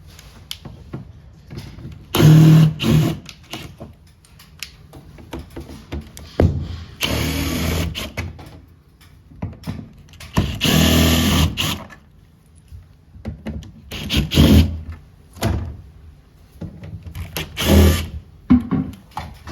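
Cordless power driver running in five short bursts of one to two seconds each, with quieter handling sounds in between, as screws are taken out of a ceiling cassette air conditioner being disassembled.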